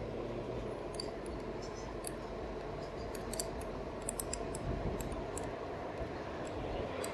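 Steady rolling and wind noise from a RadMini electric fat-tyre bike riding along a concrete sidewalk at about 10 mph, with scattered light clicks and ticks.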